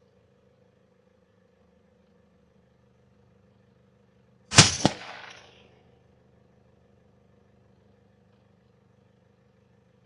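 A single shot from a moderator-suppressed .223 rifle about halfway through, a sharp crack followed a quarter second later by a second sharp report, which is most likely the bullet striking the hare, then a short fading echo. A faint steady hum sits underneath.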